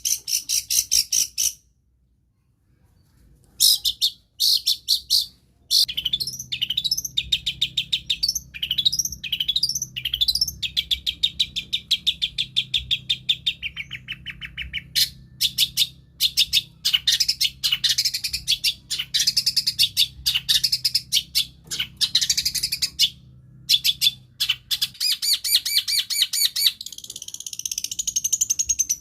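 Long-tailed shrike (cendet) singing a fast, varied run of chattering, scratchy notes. After a pause of about two seconds near the start it gives a string of quick downward-slurred notes, then carries on with rapid repeated phrases.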